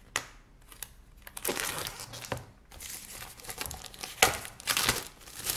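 Clear plastic shrink-wrap being torn and peeled off a cardboard box, crinkling in repeated bursts with a few sharp crackles, starting about a second and a half in after a single click.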